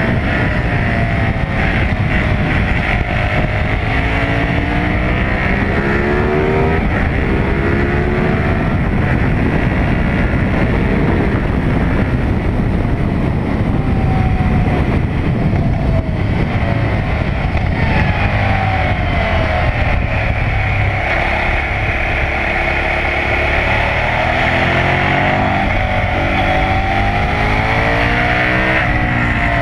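KTM 990 SMR's V-twin engine under hard acceleration on track, its pitch climbing in repeated steps through the upshifts, holding high along the straight, dropping from about eighteen seconds in as the bike brakes and shifts down, then climbing through the gears again near the end. Heavy wind rush on the onboard microphone.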